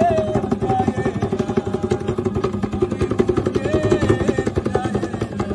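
Music for a Papuan dance: a fast, steady drum beat over a low drone, with voices calling out short held notes that bend in pitch now and then.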